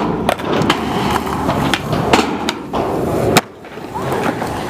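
Skateboard wheels rolling on concrete, broken by several sharp clacks of the board. The loudest clack comes about three and a half seconds in; the rolling drops away and then starts again more quietly.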